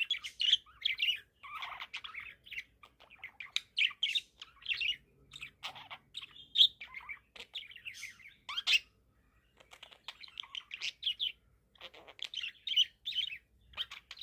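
A young budgerigar, about four months old, chirping and chattering in quick runs of short calls, with a brief pause a little past nine seconds in.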